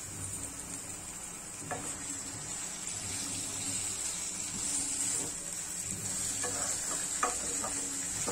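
Raw chicken pieces sizzling in ghee and oil in a kadai while a wooden spatula stirs them. Light knocks and scrapes of the spatula on the pan come once about two seconds in and several times near the end.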